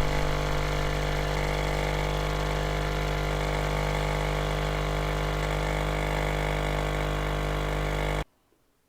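A machine motor running steadily, a loud even hum with many tones over it, cutting in suddenly and stopping dead about eight seconds in.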